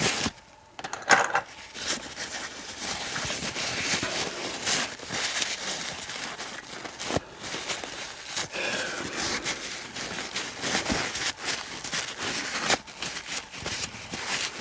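Paper towel rustling and rubbing as grimy padlock parts are wiped clean, with irregular small clicks and scrapes of handling throughout.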